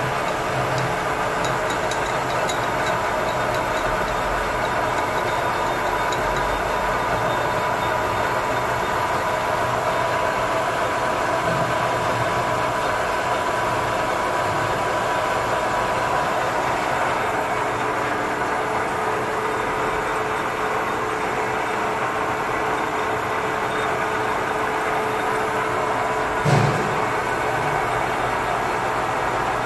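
Manual engine lathe running steadily while turning a foam dumbbell blank, a constant machine noise with a held tone through it. A single knock near the end.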